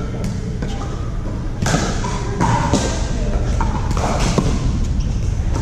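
Pickleball paddles hitting the plastic ball in a rally, with the ball bouncing on the court: a string of sharp pops about half a second to a second apart, echoing in a large hall.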